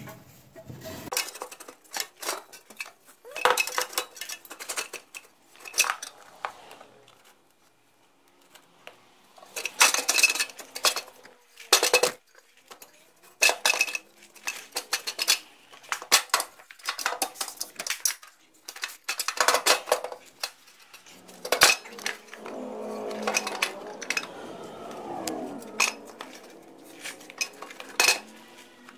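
Rusty steel exhaust muffler of a snowmobile being worked back into place in the engine bay by hand: irregular metallic clanks and clinks as it knocks against the surrounding metal, with a stretch of metal scraping about two-thirds of the way through.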